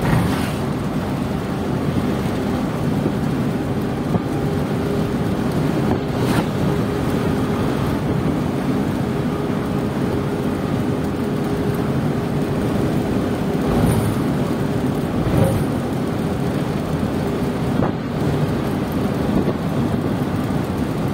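Truck cab interior while driving: the diesel engine running steadily at cruise under a constant rumble of road and wind noise, with a faint held engine tone and a few brief knocks from the cab.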